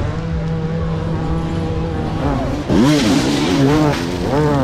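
Motocross motorcycles racing. Engines rev up and down, one holding a steady note for the first two seconds, and a louder bike passes close about three seconds in with a quick rise and fall in pitch.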